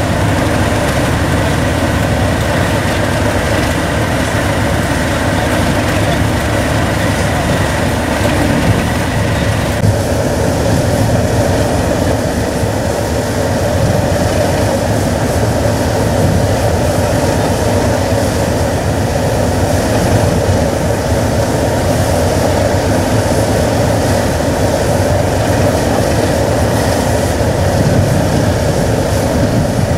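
Large diesel locomotive engine idling steadily.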